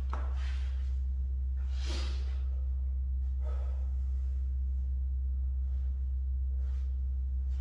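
A man breathing hard from bodyweight floor exercise, with a few audible exhales, the strongest about two seconds in, over a steady low hum.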